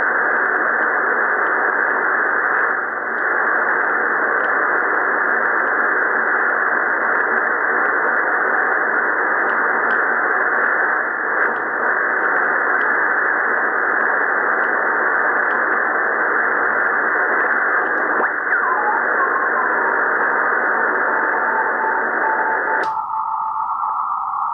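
Drake R77 HF receiver hissing with band noise from its speaker as it is tuned by hand around 14 MHz. About three-quarters of the way through, a carrier whistle slides down in pitch and settles into a steady tone. Near the end the hiss abruptly turns thinner and narrower.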